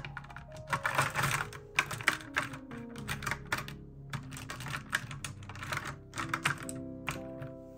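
Plastic felt-tip markers clicking and clattering against each other and a clear plastic tray as they are laid in by hand, in quick irregular clacks, with soft background music.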